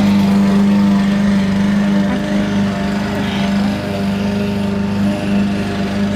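A motor running with a steady low drone.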